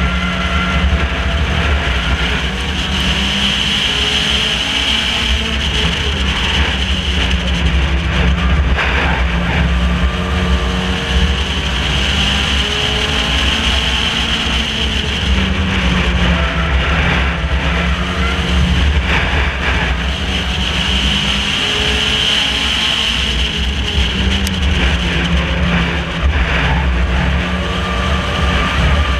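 Race car engine heard from onboard, running hard lap after lap on a short oval, its note rising and falling in a repeating cycle about every nine seconds, with steady road and wind noise underneath.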